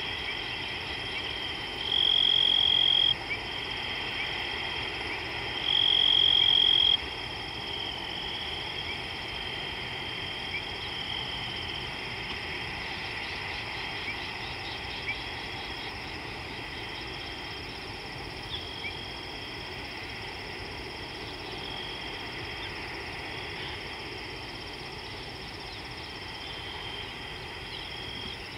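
Steady high-pitched chorus of calling frogs and insects. It swells louder for about a second twice, about two and six seconds in.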